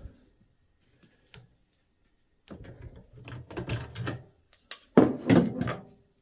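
Steel hand tools worked and handled on a workbench: a torque wrench and clawfoot wrench pulled on an AR-15 barrel nut with small clicks and rattles, then sharp metal clanks about five seconds in as tools are set down.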